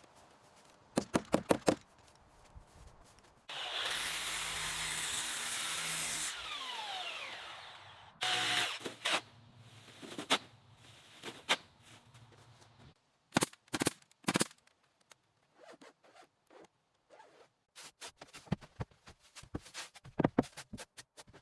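A run of construction tool sounds: groups of sharp clicks and knocks, and a few seconds of steady power-tool noise about four seconds in.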